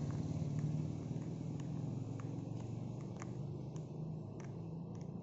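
Low hum of a passing motor vehicle's engine running and slowly fading away, with a few faint ticks in the middle.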